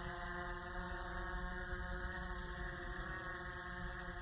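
Autel Evo quadcopter drone hovering, its propellers and motors giving a steady hum of several held tones.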